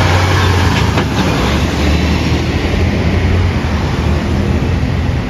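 Semi tractor-trailer driving past close by: a low engine rumble that eases after about two seconds, over steady road traffic.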